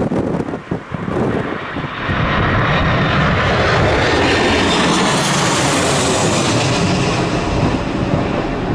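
Airliner's engines passing close overhead on approach: the noise swells over a couple of seconds, peaks around the middle and eases near the end. Gusty wind buffets the microphone in the first second or two and again at the end.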